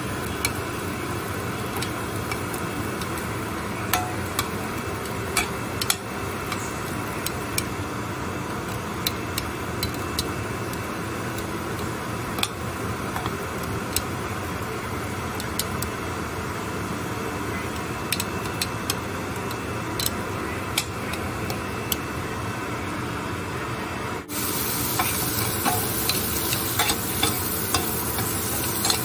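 Potato cubes sizzling as they brown in a stainless steel frying pan, with sharp clicks of metal tongs knocking on the pan as the pieces are turned. About 24 seconds in it cuts to carrot chunks frying, a little louder and with more tong clicks.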